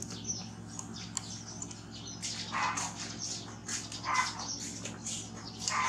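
Short animal squeaks and chirps, three of them louder than the rest, over a steady low hum.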